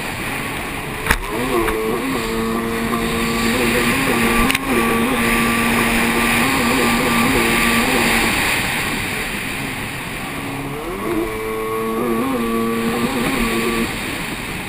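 Racing jet ski's engine running hard, its note climbing, holding, dropping away around eight seconds in and climbing again about eleven seconds in, over a steady hiss of water spray. Two sharp knocks, about a second in and again about four and a half seconds in.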